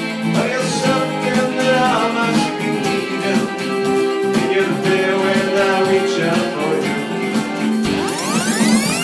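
Band music: an instrumental passage led by guitar. About eight seconds in, a sweeping effect rises over the music.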